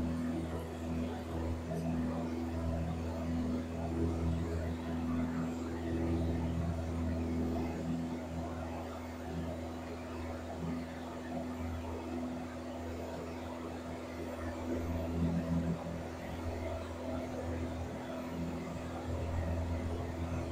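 Piper PA-28 Warrior's four-cylinder engine and propeller droning steadily in cruise, heard inside the cabin.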